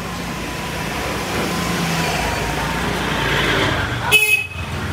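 Motor scooter engine passing close, its noise swelling over a few seconds, then a brief, loud, high beep near the end.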